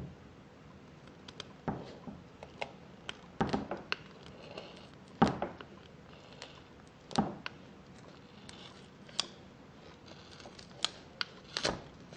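Scissors cutting through a soft foam squishy toy: short, irregular snips and clicks of the blades, about ten in all, with quiet gaps between them.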